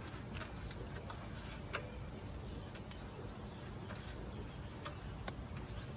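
Faint soft taps and scrapes of a gloved hand spreading wet Satanite refractory mortar over a clay chimenea, a few small clicks over a steady low background rumble.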